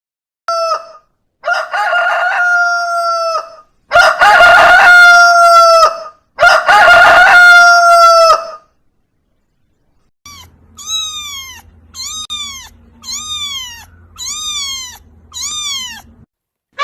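A rooster crowing: one short call, then three long, loud crows. After a pause, a cat meows in a quick run of short calls, about one a second, over a low steady hum.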